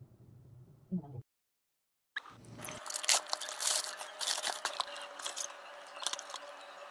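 Clear plastic bag crinkling and crackling as hands handle a boxed gimbal, with dense irregular crackles. Before it comes a second of low road rumble from a moving car, then a second of dead silence.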